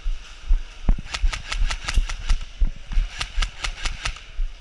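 Airsoft gun firing in quick runs of sharp cracks, about five shots a second, with short pauses between runs.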